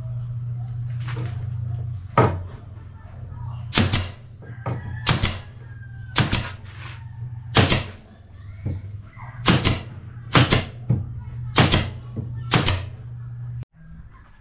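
Pneumatic nail gun firing nails into plywood, about ten sharp shots roughly a second apart, some in quick pairs. A steady low hum runs underneath and cuts off suddenly near the end.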